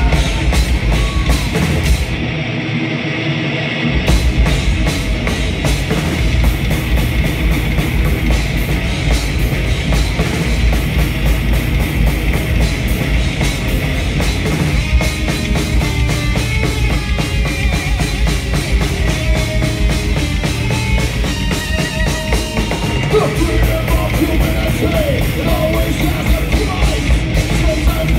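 Live heavy metal band playing at full volume: distorted electric guitars, bass and drum kit. The bass and drums drop out for about two seconds near the start, then the full band comes back in with fast drumming.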